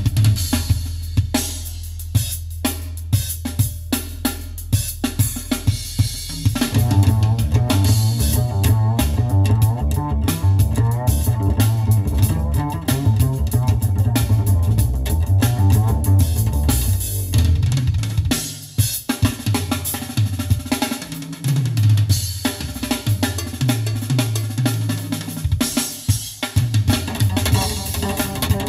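Jazz-fusion music with a drum kit of bass drum, snare and rimshots, played back through a custom high-end car audio system in the car's cabin. About six seconds in, a busy bass line joins the drums.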